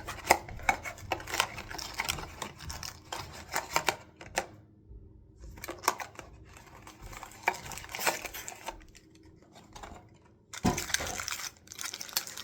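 Blind-box toy packaging being opened by hand: irregular crinkling, tearing and small clicks and taps, with two short pauses.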